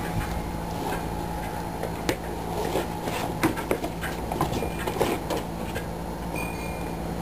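Small goat hooves clattering and knocking irregularly on a plywood platform as Nigerian dwarf goat kids shuffle and jostle, over a steady low hum.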